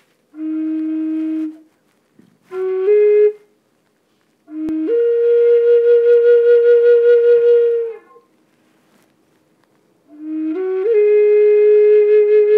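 Native American flute playing a slow melody in short phrases of long held notes with pauses between them. The longest note, in the middle, wavers with a pulsing vibrato, and near the end the notes step upward into another held tone.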